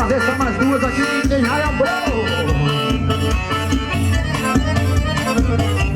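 Forró pé de serra band music led by accordion, playing over a steady, even beat.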